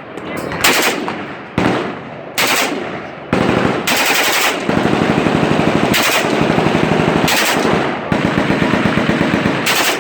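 AK-47 rifle in 7.62×39 mm firing: a few loud separate shots or short bursts, then long full-auto bursts at about ten rounds a second, with a brief break about four-fifths of the way through.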